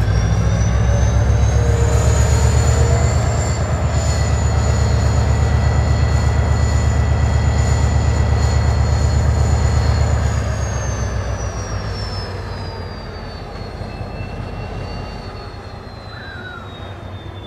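071-class diesel locomotive's General Motors EMD turbocharged V12 working under power: a deep engine rumble with a high turbocharger whine that rises over the first few seconds and holds. About ten seconds in the engine is throttled back, the rumble drops and the whine winds down.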